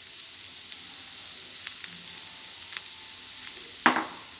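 Fried egg and spice mixture sizzling in oil in a pan, a steady high hiss with scattered small crackles. There is one loud knock near the end.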